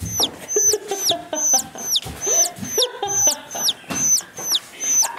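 Playful background music laid over the scene, built on a short high whistle-like note that falls in pitch and repeats about twice a second, with a bird- or chicken-like comic sound.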